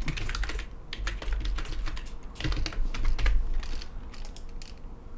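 Typing on a computer keyboard: quick runs of keystroke clicks, growing sparse in the last couple of seconds.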